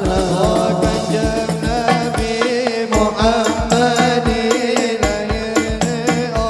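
Hadroh ensemble playing sholawat: frame drums and bass drums beat a quick, steady rhythm while a male lead singer sings in Arabic over a microphone and PA.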